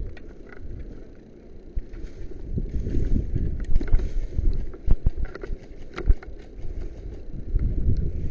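Low wind rumble and handling noise on a body-worn camera microphone, with scattered irregular knocks and clicks from the wearer's gear and movement.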